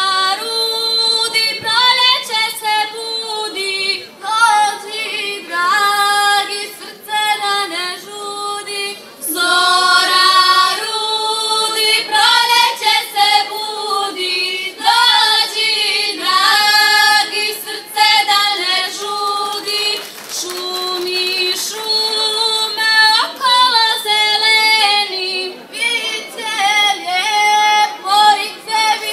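A girls' singing group of five voices singing a song together into microphones, in phrases of a few seconds with short breaks between them.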